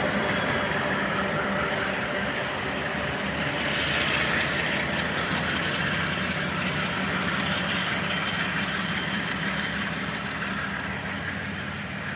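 A pair of GE diesel locomotives shoving at the rear of a loaded coal train, their engines running under power as they notch up. The steady engine drone slowly fades as they move away.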